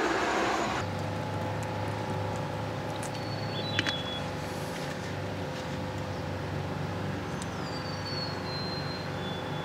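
Steady low mechanical hum, unchanging in pitch, like a motor running, with a few faint high thin whistles and a small click near the middle.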